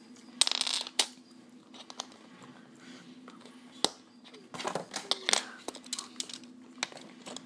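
Mega Bloks plastic pieces clicking and rattling as a display stand is fitted together by hand, with a rustle about half a second in and a cluster of clicks a little past halfway, over a faint steady hum.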